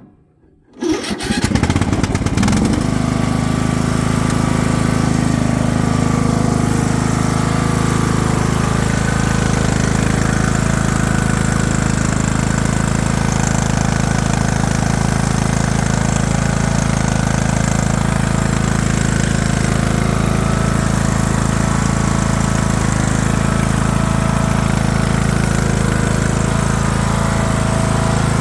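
Craftsman LT3000 riding mower's engine starting about a second in on a cool start, then running steadily.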